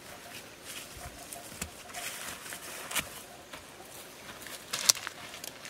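Footsteps and rustling through tall grass and leafy scrub, with irregular swishes and a few sharp crackles of stems or leaves, the loudest a snap near the end.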